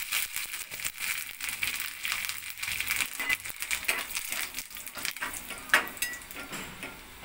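Mustard seeds spluttering and curry leaves crackling in hot ghee, a tempering (tadka) in a small aluminium pan, with a steel spoon stirring and scraping against the pan; one sharp knock of the spoon on the pan about six seconds in is the loudest sound.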